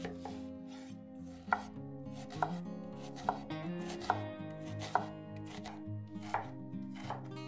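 Knife chopping on a cutting board: sharp, even strokes about once a second.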